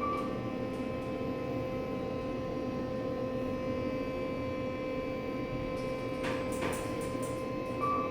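Kone elevator running: a steady electrical hum with a fixed whine from the drive, a short high beep just after the start and again near the end, and a few light clicks about six to seven seconds in.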